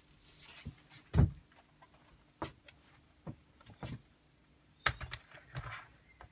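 Knocks and clunks of a 3D-printed plastic InMoov robot torso being lowered onto its base and settling on a ring of steel ball bearings, over a faint steady low hum. The loudest is a low thump about a second in, followed by several sharper knocks.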